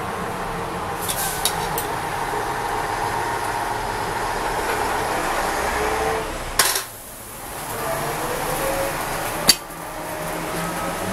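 Steady background noise with a few light clicks, then two sharp clinks about six and a half and nine and a half seconds in as a fork lays a raw pork chop on the electric grill's wire rack.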